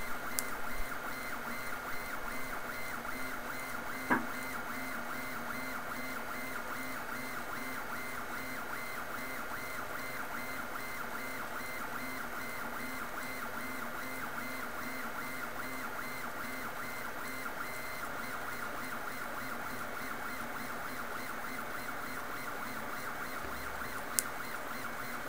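MendelMax 1.5 3D printer running, its motors giving a steady whine of several held tones. Two short sharp clicks, about four seconds in and near the end.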